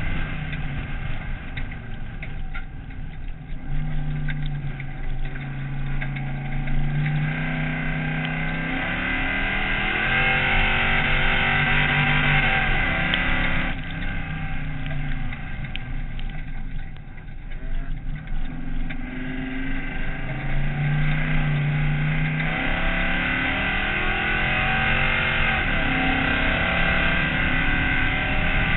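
Race car's engine heard from inside the cockpit on a dirt circuit, revving up through the gears and dropping back as the driver lifts off, several times over, with a sharp drop in revs about halfway through. Steady road and wind noise runs underneath.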